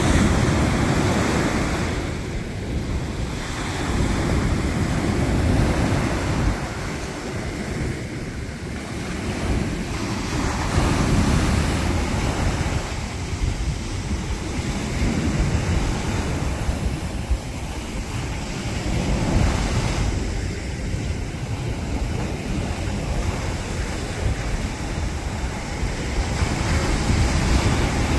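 Mediterranean surf breaking on the beach, surging and easing every few seconds, with wind buffeting the microphone.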